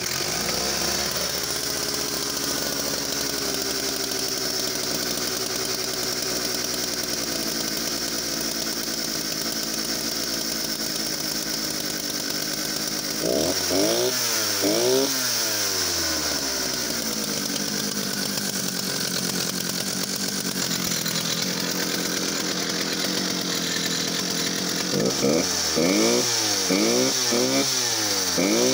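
Vintage Stihl 07 two-stroke chainsaw catching right at the start and running steadily, then revved in quick throttle blips, pitch rising and falling several times: once about halfway in and again near the end.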